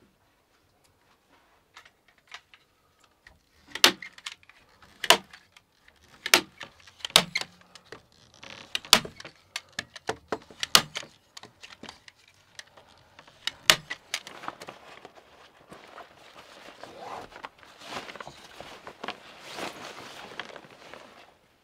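Sharp knocks, about seven of them a second or two apart with lighter clicks between, as flax tow is tapped into the gaps of a wall to seal it against draughts. Then several seconds of rustling that rises and stops abruptly.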